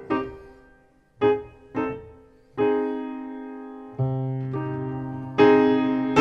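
Slow piano music. After a brief pause come two short notes, then held chords that ring and fade one after another, and it grows fuller and louder near the end.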